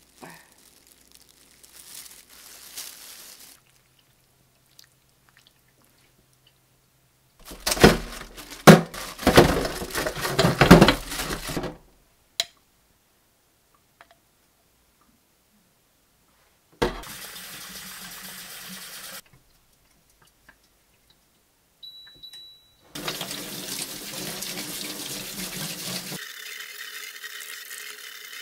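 Tap water running into a stainless steel sink in stretches while sea snail shells are scrubbed with a brush under it. About eight seconds in comes a burst of loud knocking and clattering a few seconds long, the loudest sound here.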